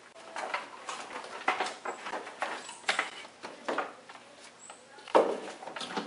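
Irregular clicks, scrapes and rustles of wiring being handled and pushed through the plastic trim of a car's engine bay by gloved hands, with a louder knock a little after five seconds in.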